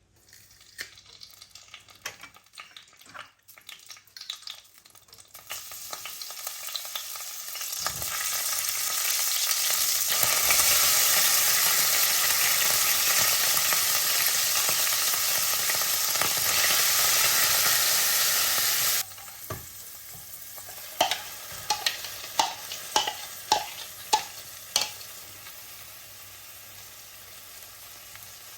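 Food frying in oil in a pan. After a few scattered clicks and knocks, the sizzle builds and stays loud for several seconds, then drops abruptly to a quieter sizzle about 19 seconds in. A utensil taps sharply against the pan a number of times while stirring.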